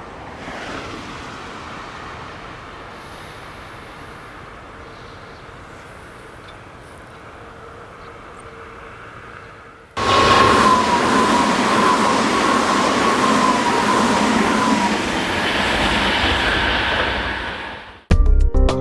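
Tobu 200 series electric limited express train running past. After a quieter stretch of distant running noise, a loud rush of wheel and running noise starts suddenly about halfway through, carrying a steady tone that slowly falls in pitch before the noise dies away near the end.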